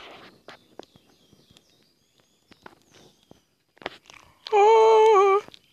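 Small twig-and-leaf campfire crackling faintly with scattered pops, with faint bird chirps. About four and a half seconds in, a person's voice holds a loud, wavering note for about a second.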